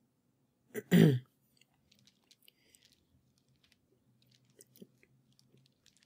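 A brief vocal sound about a second in, then faint scattered clicks and taps as an aluminium Apple Wireless Keyboard is handled and turned over.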